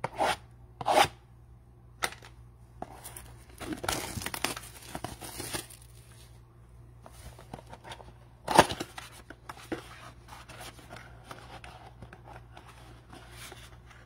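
Cardboard blaster box of Absolute Football trading cards being torn open by hand: short ripping and rustling strokes, with a busier stretch of tearing a few seconds in and one sharp, loud rip about eight and a half seconds in.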